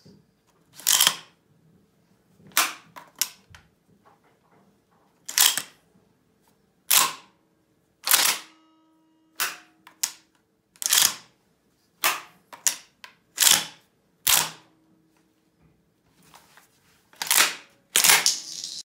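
A Beretta 1301 semi-automatic shotgun being loaded by hand: 12-gauge shells are pushed one after another through the loading port into the magazine tube, each giving a sharp metallic click, about fifteen clicks in all, some in quick pairs. Two louder clacks come near the end.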